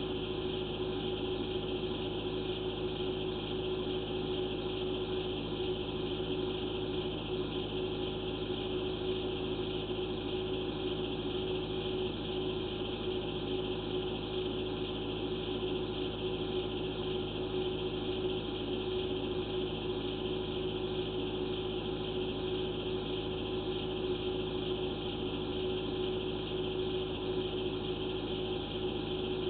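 A steady mechanical hum with a constant low tone, unchanging throughout.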